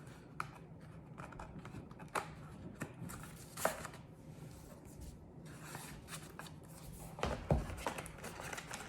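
Hands handling paper and cardboard packaging, with scattered rustles and light knocks as things are put back into a box. There is a sharper knock about three and a half seconds in and another near the end.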